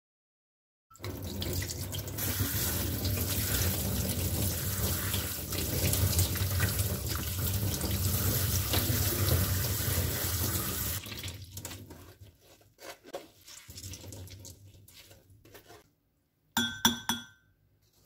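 Tap water running hard onto soaked wakame seaweed in a stainless steel mesh strainer as it is rinsed. The water stops about two-thirds of the way in, leaving scattered drips and small splashes as it drains, and a brief clatter with a metallic ring near the end.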